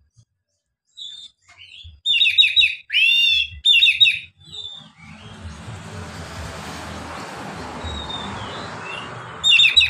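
Oriental magpie-robin (kacer) singing loudly in short phrases: a quick run of falling notes, a long swooping note, then another run, with a short phrase again near the end. From about halfway through, a steady noisy rumble builds up behind it.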